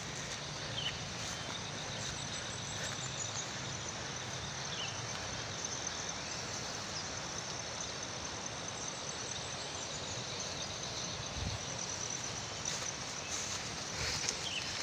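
Insects trilling steadily in the vegetation, with bursts of rapid high-pitched chirping, over a constant background hiss.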